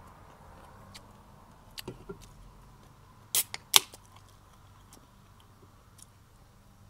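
Aluminium drink can opened by its pull tab: two sharp cracks close together about halfway through, the second the louder, after a few faint clicks.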